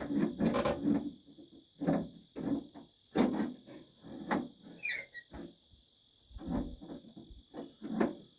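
Irregular metal clicks and knocks from tools and parts being worked inside a 1957 Ford F100 pickup's door while the door handle and latch are being removed, with a short falling squeak about halfway through. A steady high chirping of crickets goes on behind.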